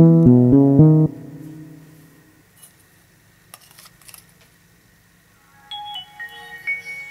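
Nokia mobile phone powering up. Its start-up tune of plucked notes in a steady beat ends abruptly about a second in. Then come a few faint clicks of the phone being handled, and near the end a short run of electronic beep tones stepping up and down in pitch.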